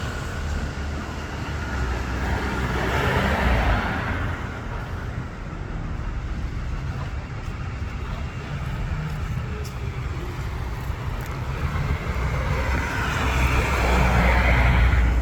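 Street traffic: vehicles passing on the road, with a steady low rumble that swells twice as a vehicle goes by, about three seconds in and again near the end.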